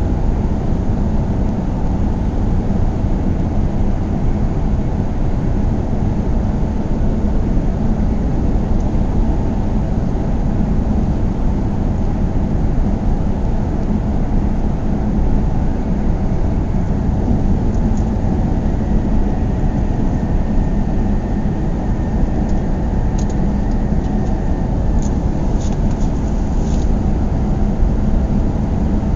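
Car driving at a steady speed: continuous engine and road noise. A few faint short ticks come near the end.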